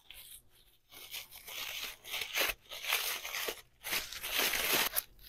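White tissue paper being crumpled and crinkled by hand, an irregular papery crackle that starts about a second in and comes in uneven bursts.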